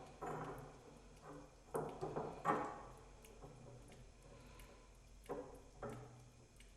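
Light clicks and knocks of copper pipe fittings (elbows and pipe) being handled and test-fitted, a handful of short separate sounds with a couple of sharper clicks about two seconds in.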